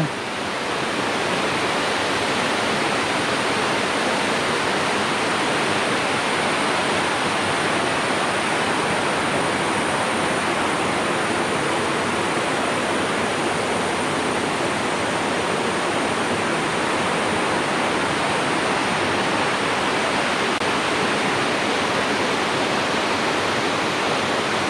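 Khandadhar waterfall's falling water, a steady, unbroken rush.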